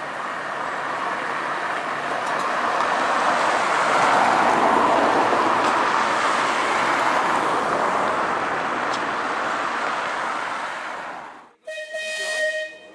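Manx Electric Railway electric tram and its trailer running along the track, the rumble of steel wheels on rail swelling to a peak about four seconds in and then easing off. It cuts off abruptly near the end, and a short steady high-pitched tone follows.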